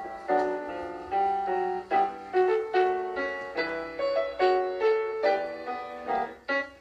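Piano playing a gavotte: quick melody notes over chords in a steady dance rhythm.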